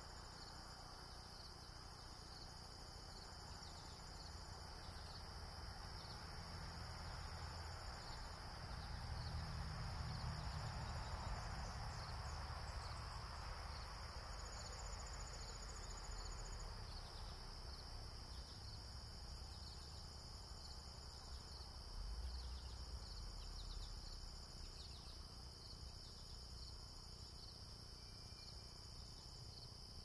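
Evening chorus of crickets and other insects: a steady, continuous high-pitched trilling. A low rumble swells and fades through the middle, with another short swell about two-thirds of the way in.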